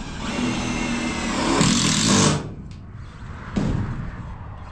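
Power drill driving a screw into the camper's aluminium siding: the motor whines steadily for about two seconds and stops, then gives one short burst about a second later.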